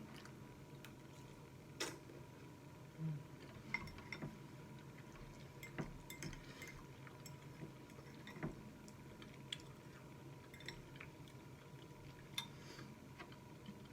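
A fork clinking and scraping on a plate now and then, a few faint separate clicks spread over the stretch, while spaghetti is being eaten.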